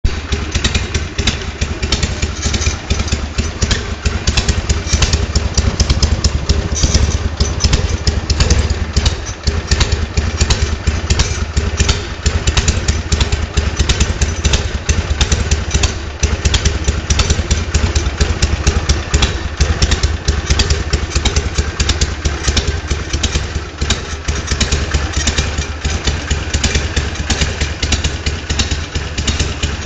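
Harley-Davidson Sportster V-twin idling steadily through its stock exhausts, with a lumpy, uneven beat.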